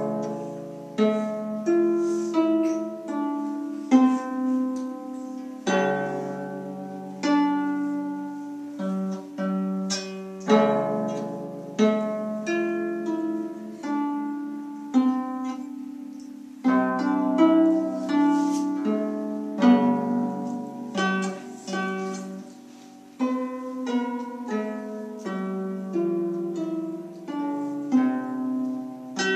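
Solo lever harp played by hand: a tune of plucked notes over lower plucked notes, each note ringing on and fading.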